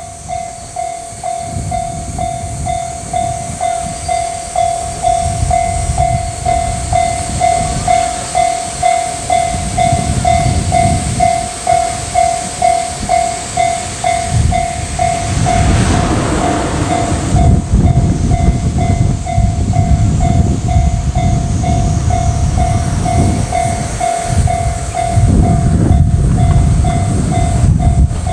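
Japanese level-crossing alarm bell dinging in a steady, even rhythm, starting at once, as a KiHa 40-series diesel railcar approaches. The railcar's low engine and wheel rumble builds and is loudest from about halfway through.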